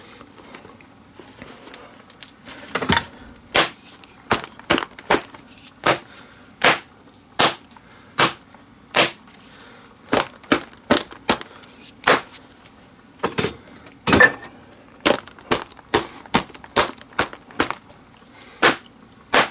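A long irregular series of short, sharp clicks and taps, about one or two a second, from hand work on the leather and lacing of a baseball glove.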